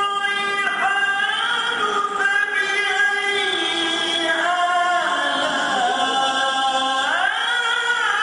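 A man's voice reciting the Quran in the melodic, ornamented style of tilawah, sung into a microphone. He holds long notes that bend and slide up and down in pitch.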